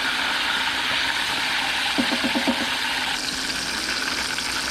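Fish fillets frying in hot oil: a steady, loud sizzle that thins a little after about three seconds. A few short vocal sounds come in about two seconds in.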